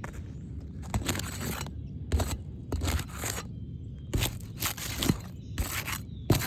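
Asphalt shingles being pried up with a flat bar, their seal strips scraping and tearing loose in about seven short bursts. They give easily because the sealant is worn out.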